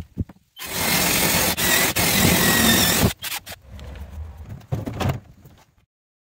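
Cordless drill with a hole saw cutting through the plastic of an IBC tank for about two and a half seconds, a loud grinding noise with a wavering whine, stopping abruptly. Lighter clicks and knocks of handling follow.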